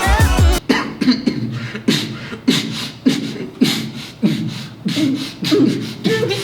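A run of rhythmic, beatbox-style coughs from one person, about two a second, each a sharp hit with a short falling tail.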